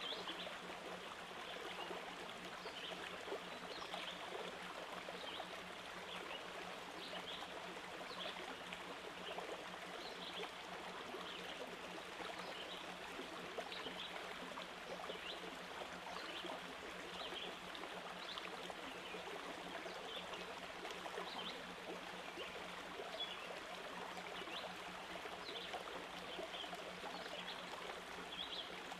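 Steady rushing water noise like a flowing stream, with small high ticks scattered through it and a faint low hum underneath.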